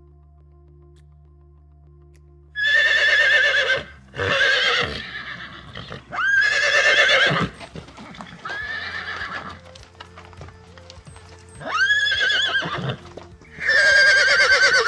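An animal calling over and over: six drawn-out, quavering calls, each about a second long, with a faint steady low hum underneath.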